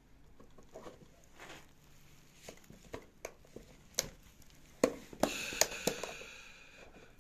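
Plastic housing of an electric chainsaw being handled and opened, its screws already out. Scattered light clicks and knocks come first, then a few sharp plastic snaps about five seconds in and a second or so of scraping as the cover comes free.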